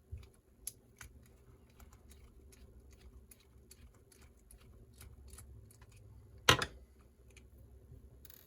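Scattered small clicks and ticks of a small screwdriver turning tiny screws out of an Axial SCX24's transmission case, with one louder knock about six and a half seconds in.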